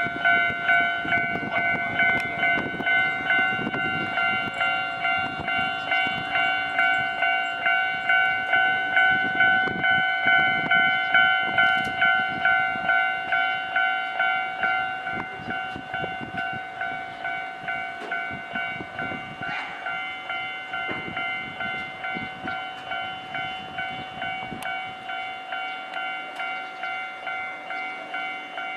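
Japanese level-crossing alarm ringing on and on in an even, ringing beat of about one and a half strikes a second while the crossing stays closed for shunting trains. A train rumbles and clacks slowly over the rails beneath it, fading in the last few seconds.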